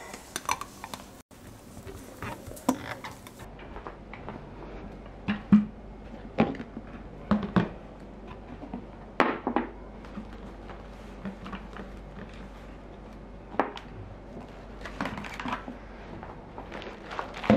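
Lidded food storage containers being set down and shifted inside a woven straw basket: about ten scattered knocks and light rattles, with a few small clinks at the start.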